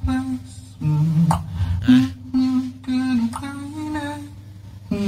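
A beatboxer humming a held, stepwise melody into a handheld microphone, with a low bass note and a few sharp beatboxed percussion hits underneath.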